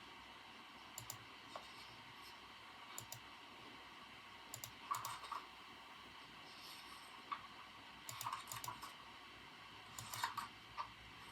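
Computer keyboard typing in short, scattered bursts of a few keystrokes with pauses between, over a faint steady background hiss.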